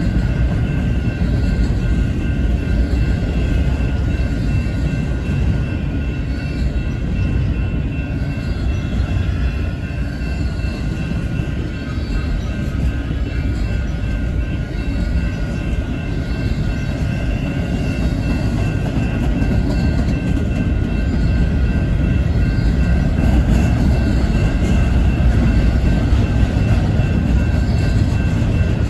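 Double-stack intermodal well cars rolling past at close range: a steady rumble and clatter of steel wheels on rail that grows slightly louder near the end. Faint steady high ringing tones sit above it.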